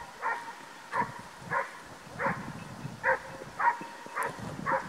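Hunting dog barking over and over at a steady pace, about eight barks, while chasing a wild boar.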